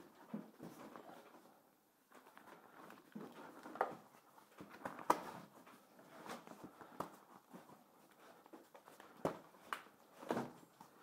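Faint handling sounds as a battery pack in a fabric bag is fitted into an electric quad's frame: scattered light knocks and clicks over soft rustling.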